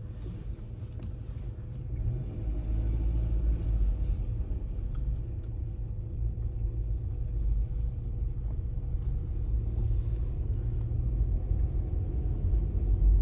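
Car driving, heard from inside the cabin: a steady deep engine and road rumble that grows louder about two seconds in as the car picks up speed.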